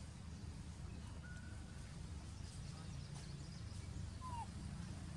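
Outdoor ambience: a steady low rumble, with a couple of faint short bird calls, one a brief falling note about four seconds in.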